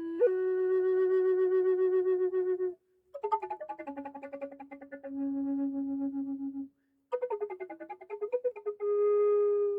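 Black walnut Native American style drone flute in E minor playing a slow melody of held notes, in three phrases with short breath breaks between them.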